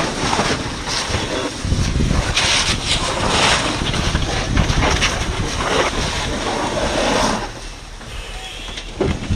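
Fire hose nozzle spraying a water stream onto a burning barn roof: a loud rushing hiss with uneven surges, dropping off sharply about seven and a half seconds in.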